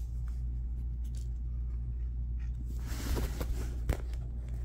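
Light handling sounds over a steady low hum: faint scattered clicks, a short rustle about three seconds in, and one sharp click a moment later.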